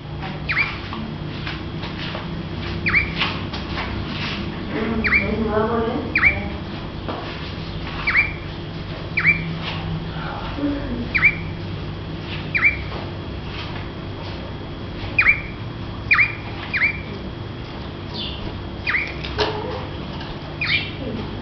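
Pet rey del bosque songbird giving short, sharp call notes, each a quick downward sweep, repeated about once a second. A steady low hum runs underneath.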